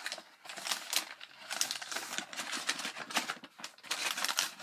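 Irregular clicks and rustling of small products and their packaging being handled close to the microphone.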